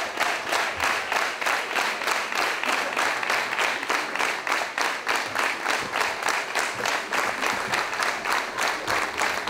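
A crowd clapping together in a steady rhythm, about four claps a second, without a break.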